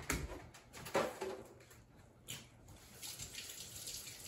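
A few light knocks in the first couple of seconds, then a kitchen sink tap running in a steady stream from about three seconds in.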